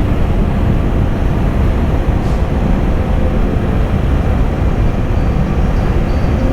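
Motorcycle riding along at a steady speed: the engine and a heavy wind rush on the microphone make one constant, loud noise.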